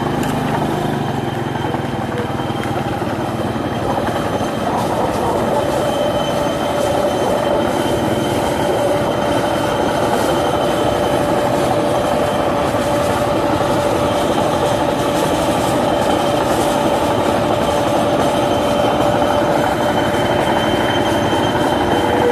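New Holland rice combine harvester driving along the road, its engine and running gear making a loud, steady mechanical rattle, with a steady whine from about five seconds in.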